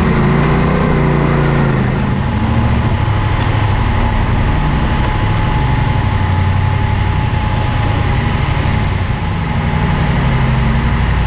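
Yamaha Ténéré 700's parallel-twin engine running on the move. The engine note drops about two seconds in, then holds steady.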